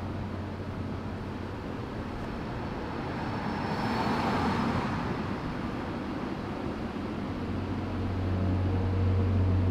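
Urban street traffic noise, with a vehicle passing and swelling about four seconds in. A low steady hum grows louder near the end.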